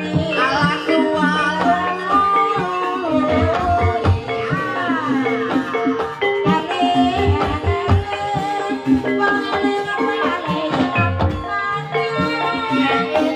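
Live Javanese jaranan music: gamelan-style metallophones and drums keeping a steady, driving beat, with a sliding, wavering melody line over it.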